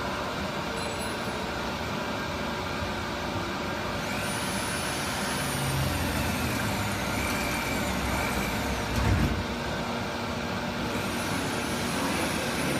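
A 4-axis CNC router's axis drive motors moving the gantry as the machine homes its axes, giving a high whine that rises and falls in pitch from about four seconds in and again near the end, over a steady mechanical hum. A brief thump a little after nine seconds.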